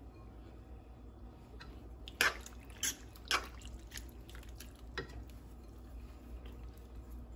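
Soft, quiet wet squishing of creamy alfredo penne as shredded mozzarella is tipped in and mixed through in a pan. Three sharp taps come close together about two seconds in, and one more about five seconds in.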